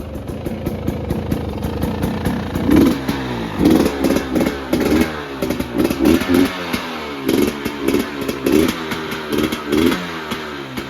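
2022 KTM 300 XC-W two-stroke engine running cold, idling steadily at first, then revved in a string of quick throttle blips from about three seconds in.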